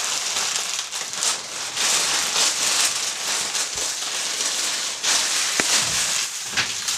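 Crinkling and crackling of packaging as a 500-pack of Nerf darts is torn open and handled, with a few sharper clicks.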